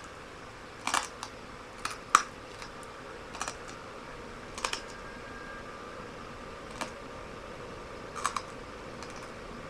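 Broken light-bulb glass being chewed: sharp, irregular crunches about eight times over several seconds, the loudest about two seconds in.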